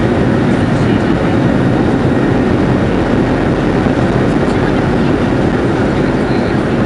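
Boeing 737-700's CFM56 jet engines and its wheels rolling on the runway, heard from a cabin seat over the wing: a loud, steady rumble during the takeoff roll.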